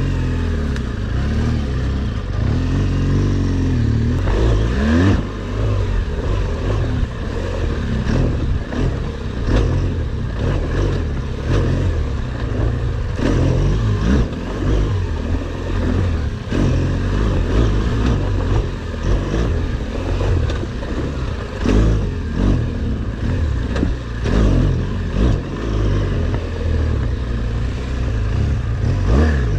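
BMW R1200GS Adventure's boxer-twin engine being ridden off-road, revving up and falling back again and again.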